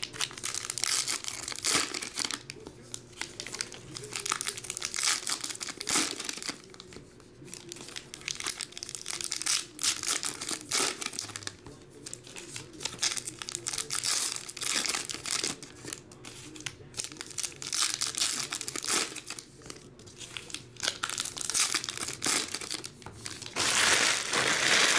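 Foil wrappers of Topps Heritage baseball card packs being crinkled and torn open by hand in irregular bursts. The loudest, longest tearing comes near the end.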